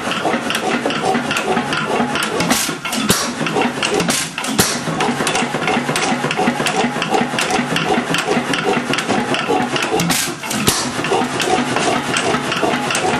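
Root & Vandervoort hoist engine, an old stationary gasoline engine, running steadily with a fast, even clatter of strokes, newly brought back to life after many years standing unused.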